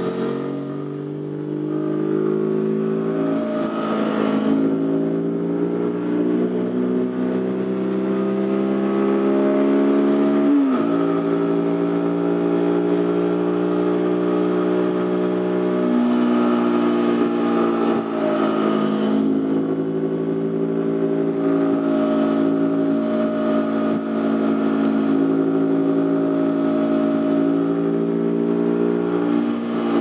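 Zontes G1 125 motorcycle's single-cylinder four-stroke engine running under way from a rider's-eye position, its note climbing slowly as it pulls through the gears, with a sudden step in pitch about ten seconds in and smaller ones later.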